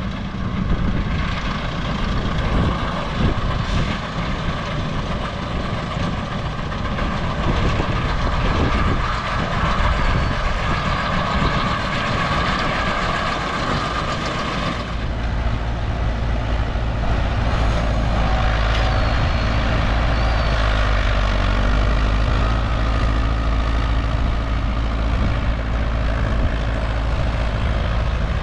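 Massey Ferguson 397 tractor engine running. About halfway through the sound changes suddenly to a steadier, low engine hum, like idling.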